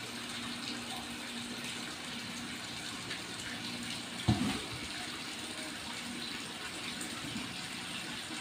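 A steady rushing background noise, with one sharp thump about four seconds in as a kitten pounces and lands at a cardboard box.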